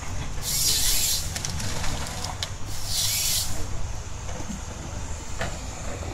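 Rottne H21D harvester at work: a steady low rumble from its 9-litre John Deere diesel, with two short bursts of hissing noise, each under a second and about two and a half seconds apart, from the harvester head at work.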